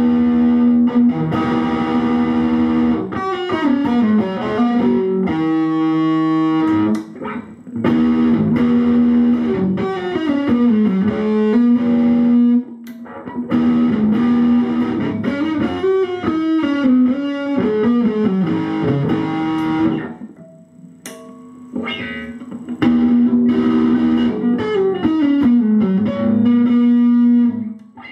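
Schecter C1 Exotic Star electric guitar played through a Pandora valve amp head on its distortion channel, a modern heavy metal tone. It plays riff phrases of held notes and sliding pitches, separated by short breaks, the longest about two-thirds of the way through.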